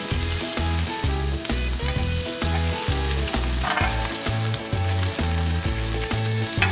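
Beef burger patties sizzling steadily on a hot griddle pan as they are turned over. Background music with a steady beat runs underneath.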